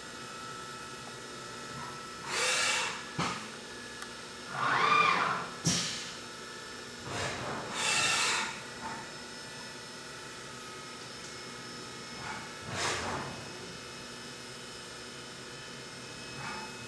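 Haas UMC 750 SS five-axis CNC mill spot-drilling: a steady machine hum broken by short bursts of cutting noise, about six of them, each about a second long, some rising and falling in pitch, as the spot drill cuts each hole.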